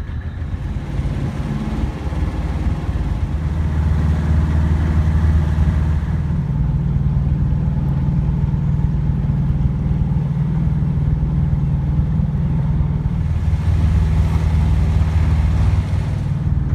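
A sailboat's auxiliary engine running steadily while motoring, a low drone that grows louder over the first few seconds and then holds.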